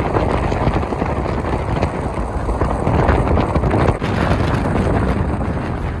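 Steady rushing wind and road noise from a car driving at speed, with wind buffeting the microphone.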